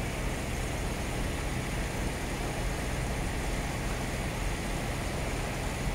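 Steady low hum and hiss of machinery in a truck repair shop, with no distinct events.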